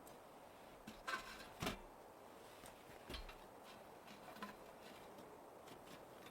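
A few light knocks and clicks, the loudest about a second and a half in, over a faint steady hiss.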